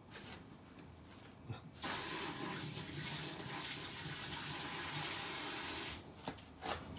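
Water running steadily, like a tap into a sink, starting about two seconds in and cutting off abruptly about four seconds later.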